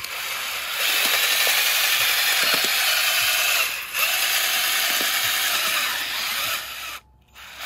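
Cordless drill spinning a spiral auger bit down into sandy soil to bore a planting hole, running steadily and churning up loose dirt. It pauses briefly a little past halfway, then runs again and stops near the end.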